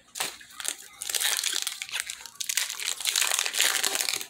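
Foil wrapper of a Pokémon TCG booster pack crinkling and crackling as it is torn open and the cards are pulled out. A short crackle comes near the start, then a longer, denser stretch from about a second in.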